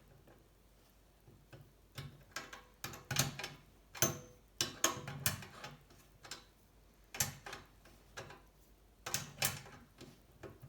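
Bursts of metallic clicks and knocks from a hand tool spreading the rear dropouts of a steel bicycle frame, cold setting the rear triangle wider, coming in several separate clusters with short quiet gaps between.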